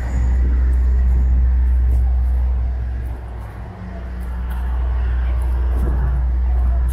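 Low, steady engine rumble from an ice cream truck idling at the curb, with street traffic behind it.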